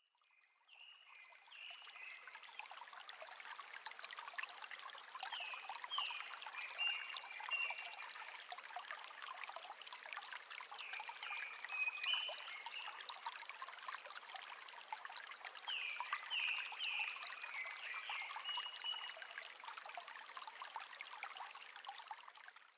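A small stream trickling faintly and steadily, with an animal's short high chirps coming in four quick runs of several calls each.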